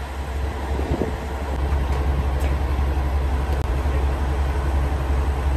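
Diesel engine of a KiHa 47 railcar idling at a standstill: a steady low hum.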